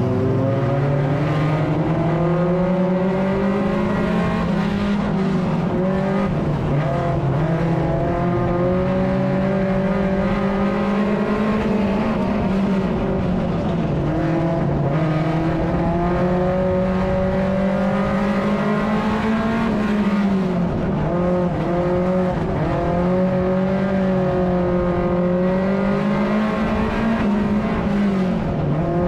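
Mini stock race car's engine at racing speed, heard from inside the cockpit. The revs climb sharply at the start, hold high and steady, then dip briefly and pick up again a few times in the second half.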